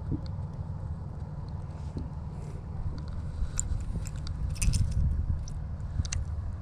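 Wind rumbling on the microphone, with faint scattered clicks and rustles of fishing line being handled while a knot is tied onto a lure.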